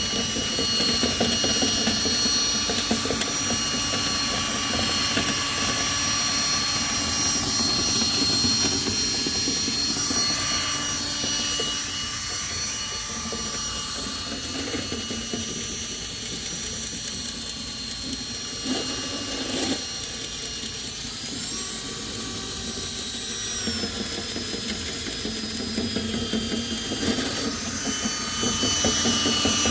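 Drill spinning dryer-vent cleaning rods with a whisk tool through a lint-blocked duct: a steady motor whine over a fast rattle of the rods in the duct. About three-quarters of the way through the whine rises in pitch, then drops back a few seconds later.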